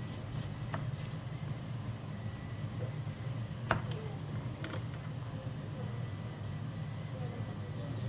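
Kitchen knife cutting through a lemon, the blade knocking sharply on a plastic cutting board a few times, loudest about four seconds in, over a steady low hum.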